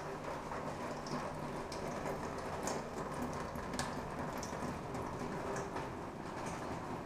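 Pumped water falling onto a roof of corrugated metal sheets and wood, a steady rain-like patter with scattered sharper ticks of drops on the metal.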